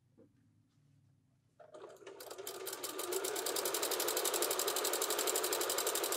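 Domestic sewing machine starting up about a second and a half in, picking up speed, then running steadily with a fast, even rhythm as it stitches a seam through fabric.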